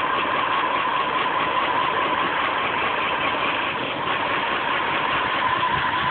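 BMW E38 740i's V8 engine idling roughly, with a steady whining tone over its running. The owner calls the idle slightly knocking and shaky, with a noise he cannot trace.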